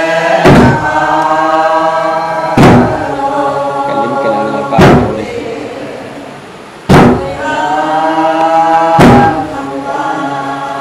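A group of men and women chanting together in a slow, drawn-out melody, with a large laced double-headed barrel drum struck once about every two seconds, five beats in all.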